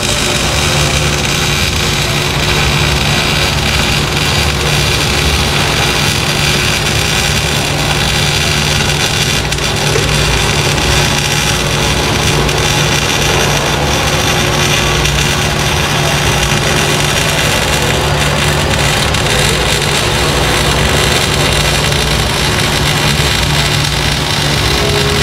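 Loud, steady machine noise with a constant low hum that does not change.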